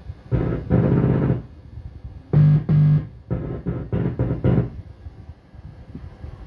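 Music with synthesizer-like pitched notes in short groups: two longer notes, a pause, two more, then a quick run of about five short notes, over a low background hum.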